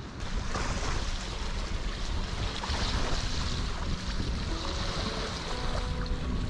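Wind rushing over the microphone of a camera mounted on a handheld wing-foil wing, with small waves washing against a rocky shore.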